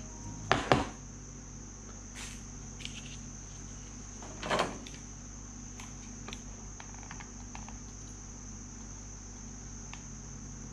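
Tool-handling noise on a workbench: two brief clatters, about half a second in and about four and a half seconds in, and a few light ticks as a soldering iron and solder are picked up and brought to a circuit board. A steady high-pitched tone sounds underneath throughout.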